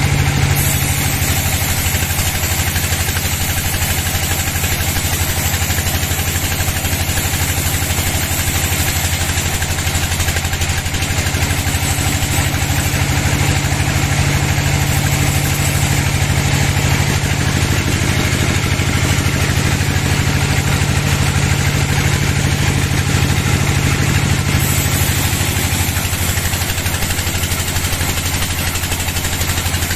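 Log bandsaw running steadily as its blade saws lengthwise through a large log, a continuous machine drone with a hiss of cutting over it. The pitch of the drone changes a few seconds before the end.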